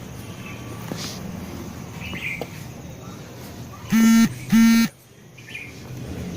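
Two short honks of a horn, each a steady, unwavering tone about a third of a second long, half a second apart, over faint outdoor background with a bird chirp.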